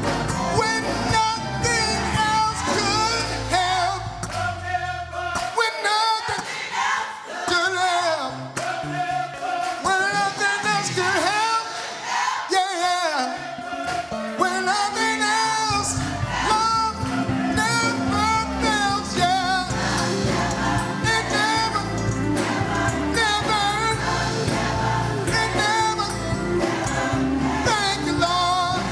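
A gospel choir singing with instrumental accompaniment. A few seconds in, the low accompaniment drops away for about ten seconds, leaving mostly the voices, then comes back in.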